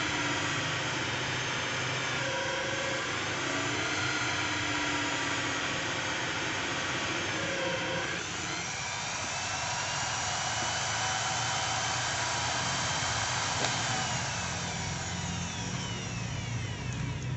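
Corded electric drill mounted in a homemade drill press, running and drilling into a workpiece, its motor whine shifting in pitch as the bit is fed down. Near the end the drill is switched off and its motor winds down, the whine falling in pitch.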